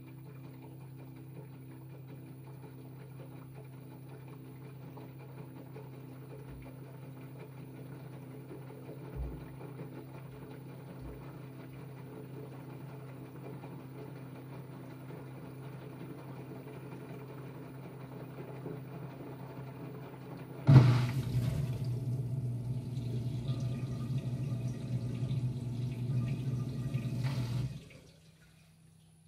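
A steady low hum, then about twenty seconds in a loud rush of running water starts suddenly, runs about seven seconds and cuts off sharply: a front-loading washing machine filling with water.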